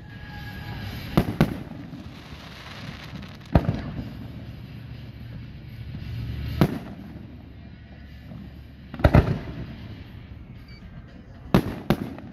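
Aerial firework shells bursting: sharp bangs every two to three seconds, some in quick pairs or a short cluster, over a steady low rumble.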